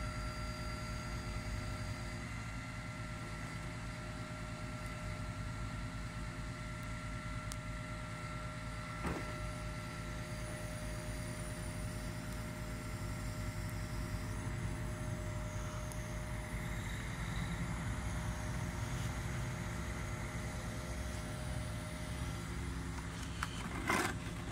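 Boom truck's engine running steadily under load while its knuckle-boom crane holds and swings a bundle of wood I-joists, with a steady whine above the low rumble. A single click about a third of the way in, and a few knocks near the end.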